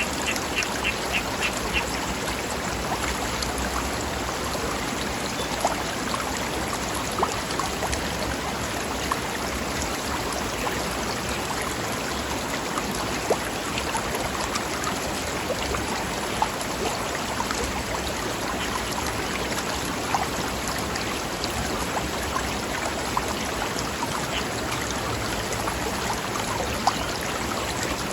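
Forest stream flowing over rocks: a steady rush of water with scattered gurgles and small splashes. Near the start a bird gives a brief run of rapid, high chirps.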